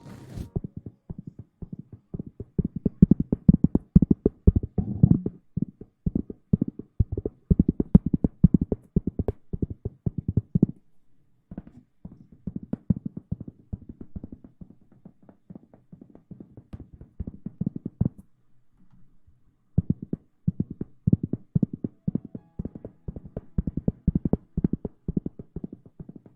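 Close-miked ASMR rustling and scrubbing on the microphone, the hair-washing kind: dense, muffled scratchy strokes in quick succession, pausing briefly twice.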